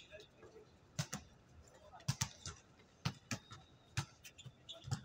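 A basketball bouncing on a hard outdoor court: a series of short, uneven thuds, some in quick pairs, roughly one or two a second.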